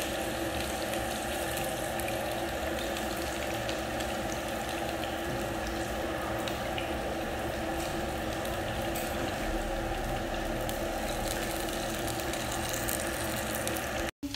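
Sausages sizzling steadily in hot oil in a small frying pan.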